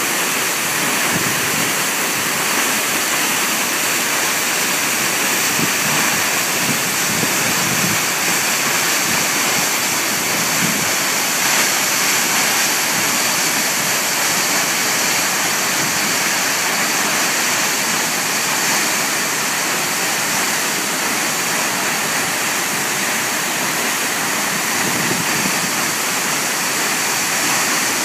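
Waterfall plunging into a pool, running high after heavy rain: a loud, steady rush of falling water.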